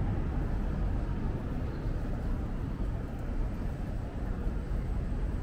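Steady low rumble of city street ambience, with no single sound standing out.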